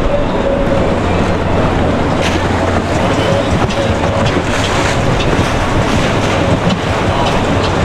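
Boat motor running steadily, with wind buffeting the microphone and water noise.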